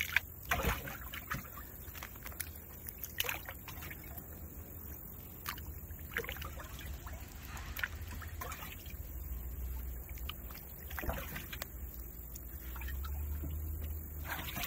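Shoal bass splashing at the water's surface as they are released by hand over the side of a boat: scattered short splashes over a steady low rumble.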